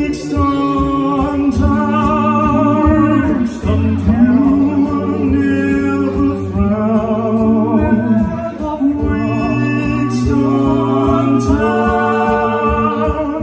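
Five-man a cappella group singing live through microphones: a wordless passage of held vocal chords over a sung bass line, with a beatboxed beat.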